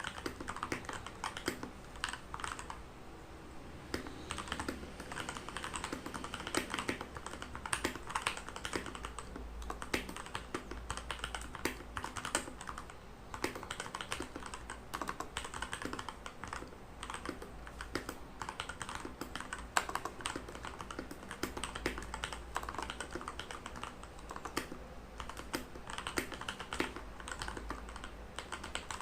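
Continuous typing on a Redragon Kumara mechanical keyboard with lubed Outemu Red linear switches: an uneven stream of key clacks with a brief lull about three seconds in.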